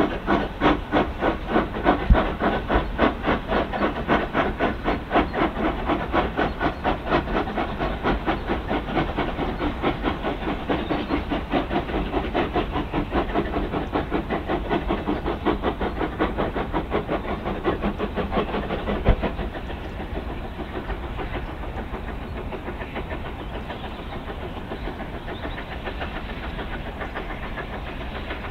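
Steam locomotive working hard as it pulls a train away, its exhaust beating rapidly and evenly. About two-thirds of the way through, after a single sharp knock, the beats fade into a steady rumble of the train running on.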